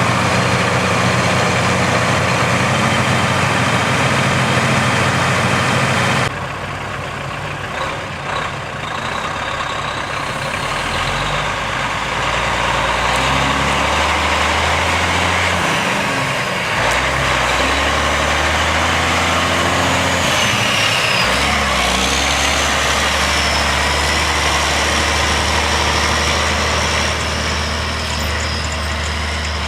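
Diesel engines of heavy harvest machinery running. About six seconds in the sound cuts abruptly to a quieter, deeper engine drone that steps in pitch a couple of times, with a thin high whine rising and falling in the second half.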